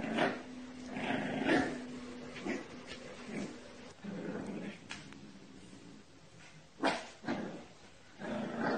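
Puppy growling in short repeated bouts while tugging at a pet bed, with a sharp knock about seven seconds in.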